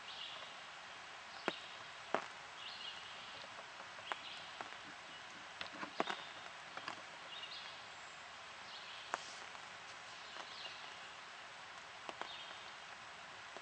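Woodland birds calling, short high calls repeated every second or two, with scattered sharp clicks and snaps over a steady hiss.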